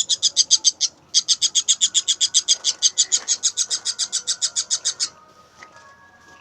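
A bird giving a fast, even series of high chirps, about ten a second. The chirps break off briefly about a second in, resume, and stop about five seconds in.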